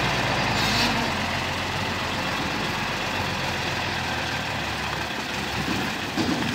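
Heavy dump truck's diesel engine running steadily at low revs as the truck moves slowly, with a short hiss about a second in.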